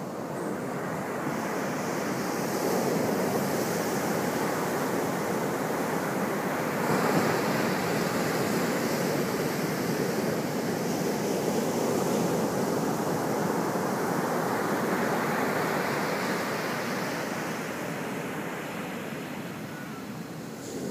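Ocean surf breaking and washing up a sandy beach: a continuous rushing wash that swells and eases. It is loudest about seven seconds in, softens near the end, then builds again.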